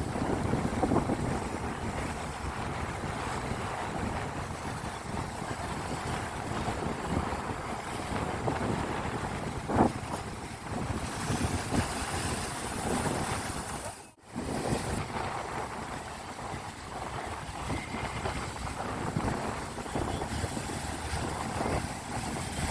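Sea waves washing in, with wind buffeting the microphone. The sound cuts out briefly about two-thirds of the way through.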